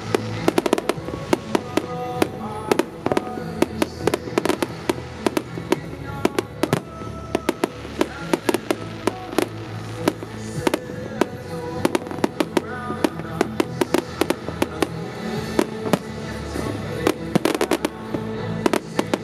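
Aerial fireworks display: a rapid, unbroken string of sharp bangs and crackles from many shells bursting, over music that plays throughout.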